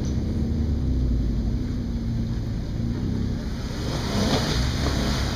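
Jeep Wrangler's engine running steadily at low revs as it crawls over rock ledges.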